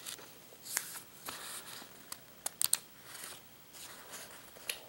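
Paper user-guide booklet being handled, bent and flipped open: soft rustling of the pages with a few sharp paper crackles, several close together about two and a half seconds in.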